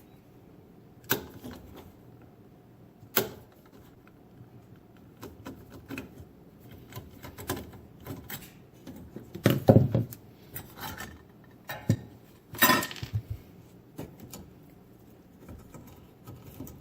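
Hand work on a dishwasher's electrical junction box as its cover is opened: scattered light clicks and metallic clinks, with about four sharper knocks spread through, the loudest a little over halfway.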